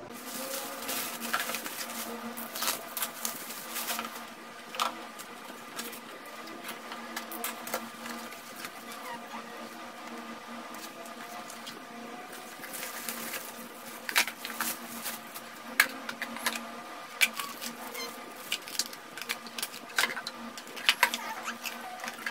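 Packaging being handled: a paper manual, cardboard and plastic bags rustling and crinkling in irregular sharp crackles and clicks, over a faint steady hum.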